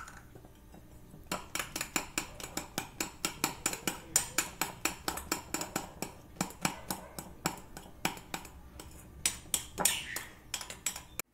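Metal spoon stirring a foamy slime mixture in a glass bowl, clinking against the glass about three or four times a second; the clinking starts about a second in.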